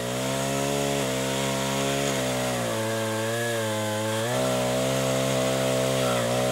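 Petrol pole pruner's small engine running at high speed while its chain saws into a tree branch, the pitch wavering and dipping briefly a couple of times as the chain bites.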